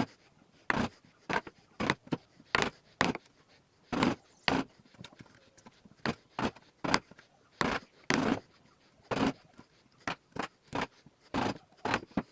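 A run of short, irregular scraping bursts, about one and a half a second, from working on the 2x4 lumber of the table.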